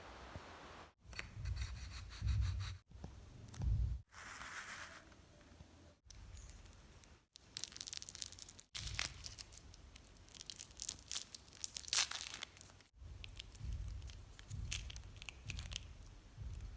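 Paper being handled and worked in a string of short cut-together clips: scratchy rubbing and rustling strokes, with low handling thumps between them.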